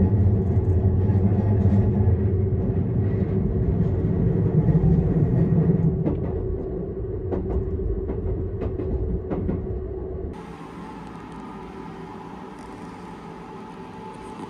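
Seibu Laview electric limited express train running, heard from inside the passenger carriage: a steady, loud low rumble with a few light clicks. About ten seconds in it changes abruptly to a quieter, steady hum with higher tones.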